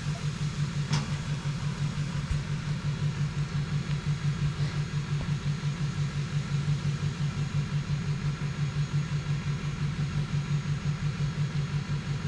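Truck engine idling steadily with an even, low pulsing throb.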